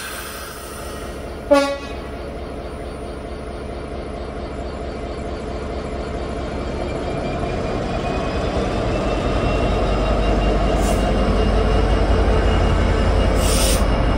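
Class 66 diesel locomotive's EMD two-stroke V12 engine running, growing steadily louder through the second half as it works harder, after one short train-horn toot about a second and a half in. Two brief hisses come near the end.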